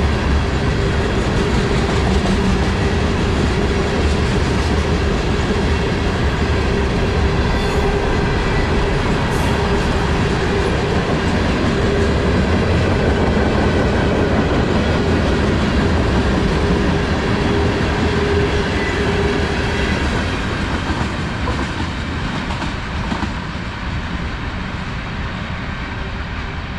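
Freight cars of a CSX manifest train, tank cars and covered hoppers, rolling past with the steady rumble of steel wheels on rail and a clickety-clack over the rail joints. The noise eases off over the last several seconds as the end of the train goes by.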